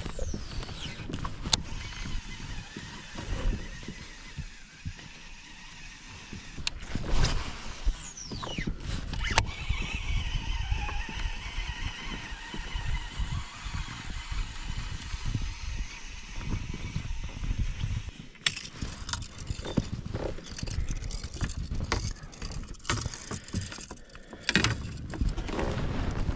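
A baitcasting reel casting and retrieving a buzzbait: a falling whir as the spool pays out on a cast about a second in and again around eight seconds in, sharp clicks as the reel engages, and a steady whirring between casts as the handle is cranked.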